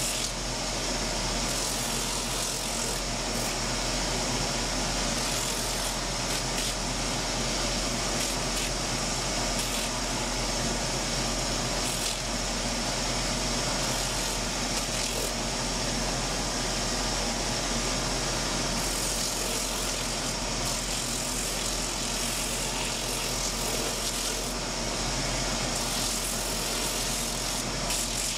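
A cobbler's shoe finishing machine running steadily: a constant whirring hiss with a low hum underneath.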